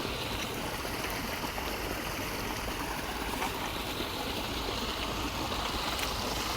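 Steady running water, a continuous flowing rush.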